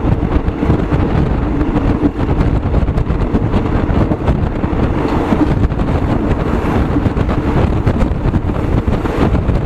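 Wind buffeting the microphone over the steady rumble of a moving road vehicle.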